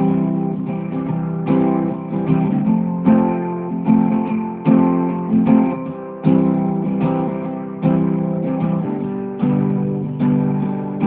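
Guitar music: chords strummed at a steady, even pace.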